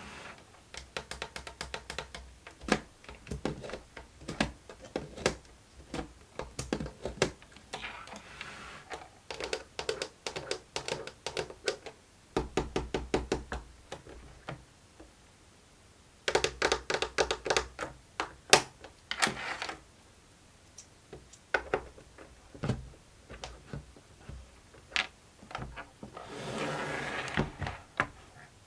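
Plastic clicks and taps from a fidget board toy being handled, including several runs of rapid clicking and a few short stretches of rustling or sliding.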